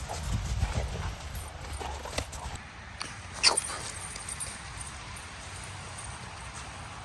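Dogs playing: scattered short knocks and paw thuds, with one sharp click about three and a half seconds in, over a low rumble of wind on the microphone.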